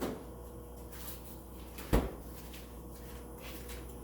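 A single sharp knock with a low thud about two seconds in, a kitchen cupboard or appliance door being shut. A softer knock comes at the start, over a faint steady hum.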